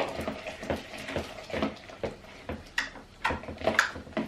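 Sticky homemade glue-and-borax slime being kneaded and poked by hand, giving irregular wet clicks and squelches, about one or two a second.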